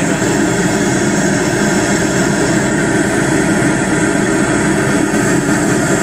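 Loud steady mechanical drone with a constant hum of several held tones, like a large engine running without change.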